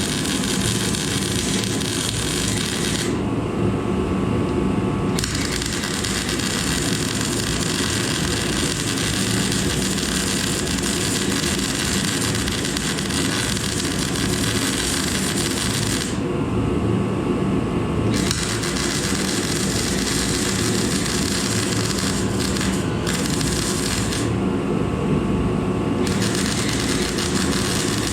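Steady metalworking power-tool noise as steel plates are made and fixed to the frame. A hissing high layer stops for about two seconds three times over a constant machine hum.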